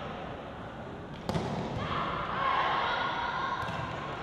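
Volleyball hit hard during a rally, a sharp smack about a second in and a fainter one later, echoing in a large gym hall. Shouting voices swell just after the first hit.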